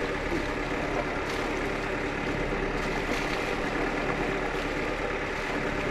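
Steady rushing noise of a sailboat under way at sea, with a few faint clicks.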